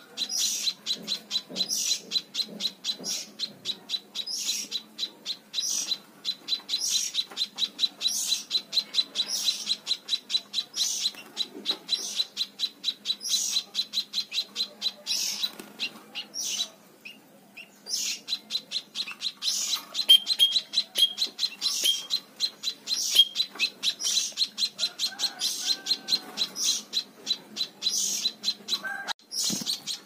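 Munia (emprit) chirping in quick, repeated short calls, about three a second, with a brief pause a little past halfway.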